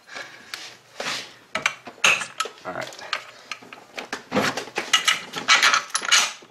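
Metal clinks and knocks of hand tools and a long steel bolt as the engine's dog bone (torque strut) mount bolt is worked loose and pulled out.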